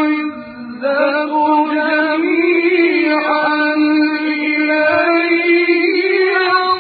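A male reciter chanting the Qur'an in a melodic, drawn-out style, holding each word on long ornamented notes, with a short breath pause just under a second in.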